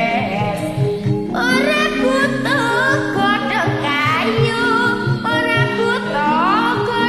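A girl singing a Javanese gendhing, the melody sliding and ornamented, over a karaoke backing track with sustained low notes and a steady beat. There is a short pause for breath about a second in.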